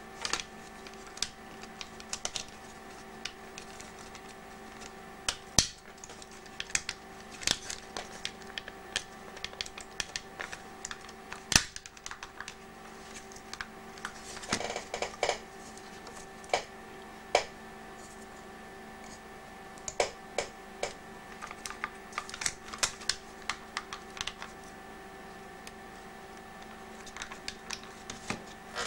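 Irregular small clicks and taps of the plastic case and circuit board of a Panasonic portable cassette player being handled and fitted back together, with a short scraping stretch about halfway through. A faint steady hum runs underneath.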